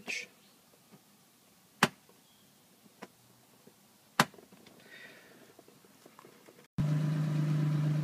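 Two sharp clicks about two and a half seconds apart in a quiet BMW E23 735i cabin, then near the end a sudden cut to a steady hum of the car's straight-six engine idling, heard from inside the cabin.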